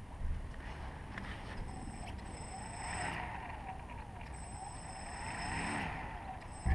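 Small electric multicopter motors on a tricopter spinning their propellers up twice in short runs, each with a high electronic whine that swells and fades. A loud thump comes near the end.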